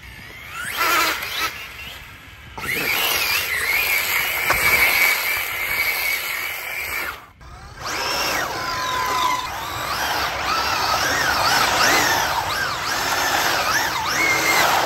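Electric RC cars' motors whining, the pitch sliding up and down with the throttle as they accelerate and slide on gritty asphalt. The sound drops out briefly about seven seconds in.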